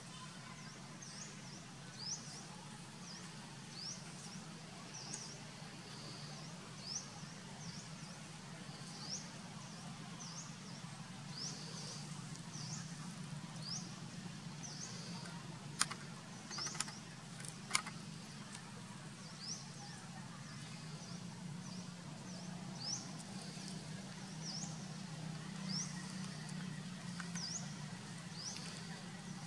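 A bird calling over and over, a short rising chirp every one to two seconds, over a steady low hum, with a few sharp clicks about halfway through.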